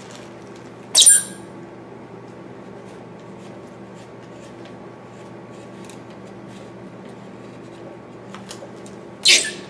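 A carving gouge cutting white cedar: two short, sharp squeaking scrapes, one about a second in and one near the end, with faint ticks of small cuts between them.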